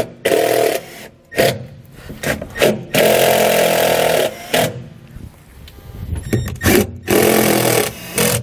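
Cordless drill driving self-tapping screws through an actuator's mounting holes into a metal floor panel. The motor runs in separate short bursts: briefly at the start, a longer run of about a second in the middle, and again near the end.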